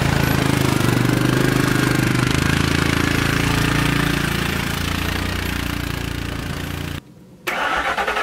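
Vehicle engine running steadily while plowing snow, with a slight easing off in level over the first seven seconds. About seven seconds in the sound drops out for half a second, then an engine resumes at a similar level.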